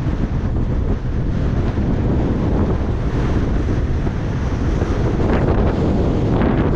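Heavy wind buffeting the microphone, a loud, steady low rumble with no clear engine note above it.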